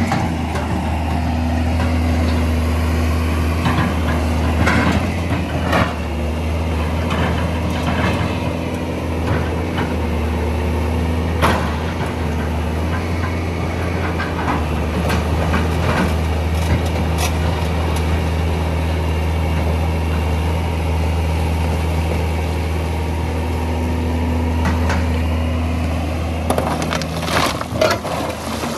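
Hitachi EX200 hydraulic excavator's diesel engine running at a steady pitch while the machine works, with scattered short knocks and clanks.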